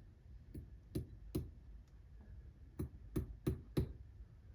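Light sharp clicks of small metal clockmaking tools on a brass clock plate, seven in all: three spaced about half a second apart, then after a short pause four more in quicker succession, while a new bushing is being set in the plate.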